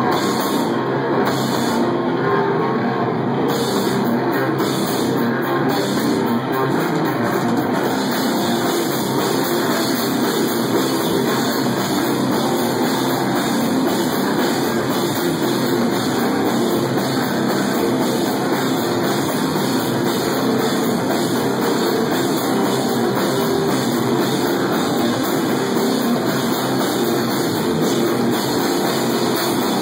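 A live stoner-metal band playing loud, steady heavy rock on drum kit and guitars.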